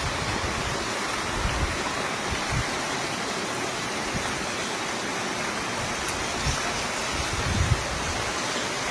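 Heavy rain pouring steadily, a dense even hiss, with a few brief low thuds.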